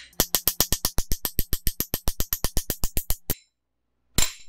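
Rapid, even hammer taps on an aluminum plate driving a new camshaft bearing into an LS engine block, about eight knocks a second for some three seconds, stopping abruptly; one more single knock near the end.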